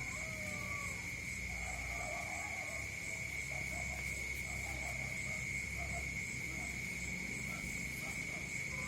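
Rural evening chorus: an insect trilling on one steady high pitch without a break, with frogs croaking in short, repeated calls beneath it.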